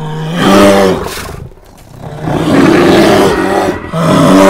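Bear roar sound effect: a deep, wavering roar, then a rough growling stretch, then a second roar near the end.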